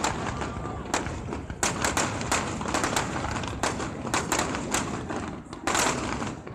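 Fireworks display: a rapid, irregular string of sharp bangs and crackles, with a longer, louder burst near the end.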